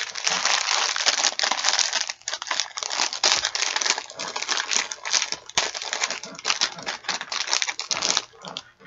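Plastic packaging of a pillowcase crinkling and crackling steadily as it is handled and pulled open, stopping shortly before the end.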